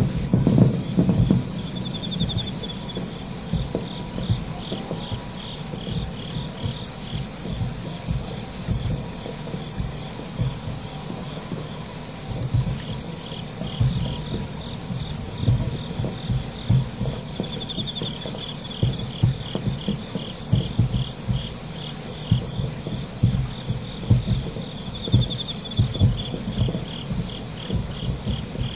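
Night insects chirring in a steady high trill, with a second insect call pulsing rapidly just below it. Under them, distant aerial fireworks shells boom as low, irregular thuds and rumbles, several strong ones about a second in and more scattered throughout.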